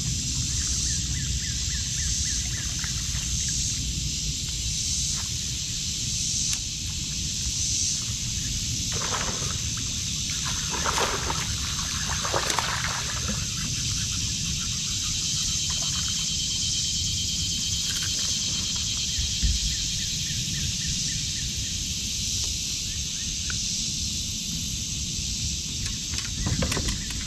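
Steady, shimmering drone of insects, with a few water splashes about nine to thirteen seconds in and again near the end.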